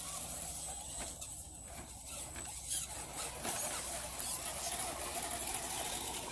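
Electric motor and gear drive of an RC scale rock crawler whining as the truck crawls down a log ramp onto rock, getting louder about three seconds in.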